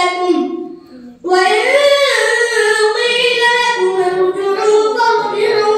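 A boy reciting the Quran in melodic tajweed chant, drawing out long held notes that bend up and down. He pauses briefly for breath about a second in, then sings one long unbroken phrase.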